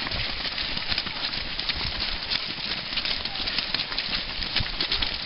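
Footsteps of many fell runners passing close by, a constant patter of footfalls on moorland ground and legs brushing through tall grass.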